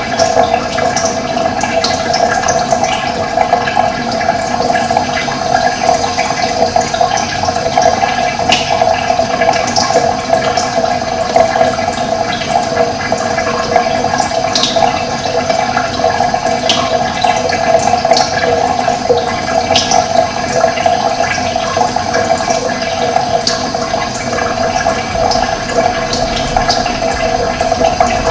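Steady rush of running water, with short high bird chirps now and then over it.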